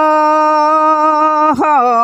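A single unaccompanied voice singing a Rungus traditional song, holding one long note on a vowel with a slight waver, then moving on to new syllables about one and a half seconds in.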